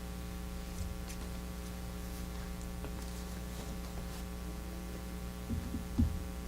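Steady electrical mains hum, with a few dull low thumps near the end.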